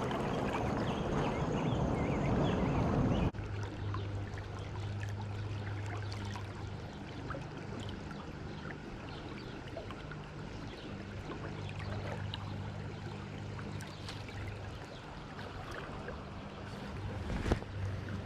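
Stream water flowing and rain falling around a wading angler, the rush loud at first and then dropping sharply to a softer wash about three seconds in, with a low steady hum and scattered small drip-like ticks beneath. A single sharp knock near the end.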